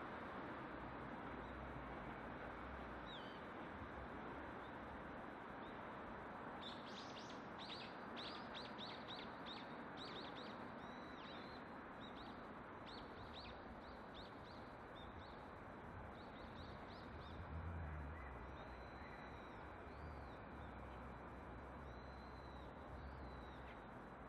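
Birds chirping, faint: a quick run of short, falling chirps starting about seven seconds in, then scattered repeated high calls, over a steady background hiss. A brief low rumble swells once near the end.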